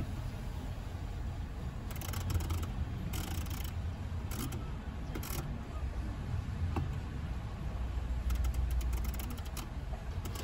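Steady low rumble inside a car's cabin, with a few short clicks and scratchy rustles scattered through it, a cluster of them near the end.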